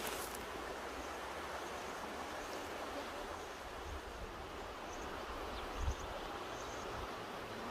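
Mountain river rushing steadily, with a brief low thump about six seconds in.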